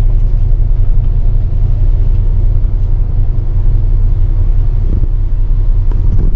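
Shuttle bus running with a steady, loud low engine rumble.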